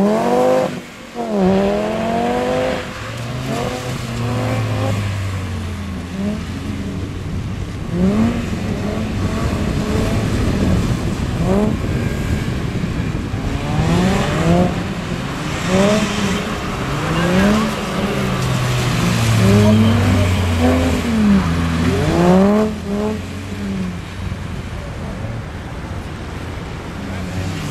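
A Volkswagen Golf hatchback's engine revs up and falls back again and again as the car slides around on wet asphalt.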